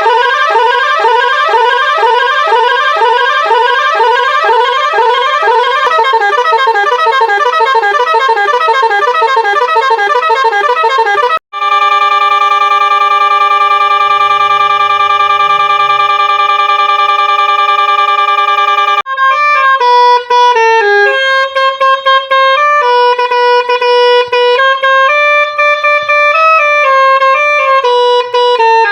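Multi-tone musical horn on an SLTB bus cycling through its patterns: rapidly repeating rising whoops, then after a sudden break a steady held chord, then about 19 seconds in a tune of stepped notes.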